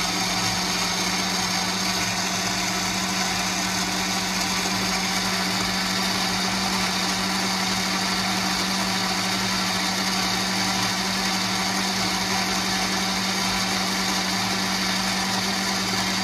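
Countertop jug blender running steadily at full speed, its motor humming over the churn of a thick tomato-and-soaked-bread purée in the glass jar.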